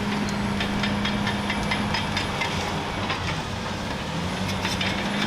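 Bulldozer engine running at a steady drone, with a fast, irregular metallic clatter over it from its tracks and drag chain.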